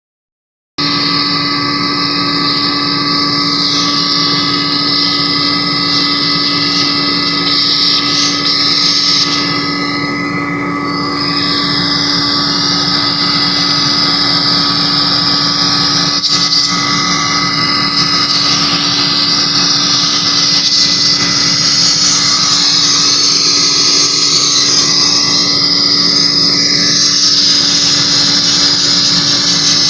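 Industrial rotary screw air compressor running steadily after repair: a loud, even machine noise with a steady hum and a strong high hiss, starting abruptly just under a second in.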